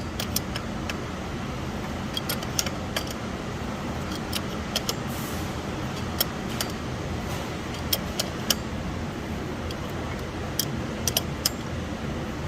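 Irregular sharp metallic clicks and clinks of hand tools and a pulley installer tool working on a power steering pump, as the pulley is pressed onto the pump shaft, over a steady background hum.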